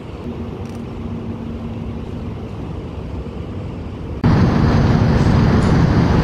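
Steady outdoor background rumble with a faint low hum. About four seconds in, it steps abruptly louder where the recording switches from the phone's microphone to a DSLR's external microphone.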